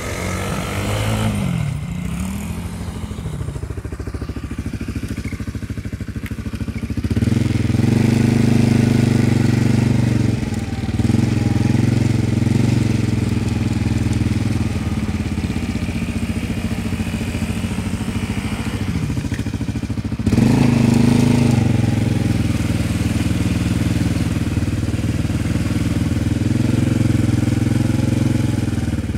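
Quad bike engines running: a small engine revving up and down, then from about seven seconds a louder, steady engine close by, which picks up again about twenty seconds in.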